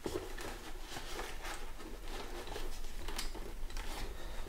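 Hands handling the inside of a motorcycle helmet, pushing the padded fabric lining and a plastic clamp into place: soft rustling with scattered small clicks and scrapes.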